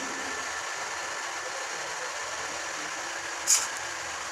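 Room tone: a steady low hum and hiss, with one brief sharp hiss about three and a half seconds in.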